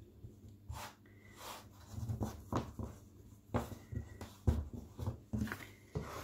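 Hands patting, pressing and folding soft, sticky quark stollen dough on a floured silicone mat: a series of irregular soft slaps and thumps, about one or two a second.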